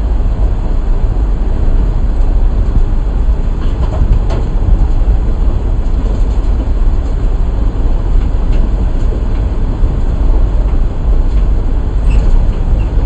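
Safari jeep driving along a rough park track, heard from on board: a loud, steady low rumble with a few light rattles and clicks.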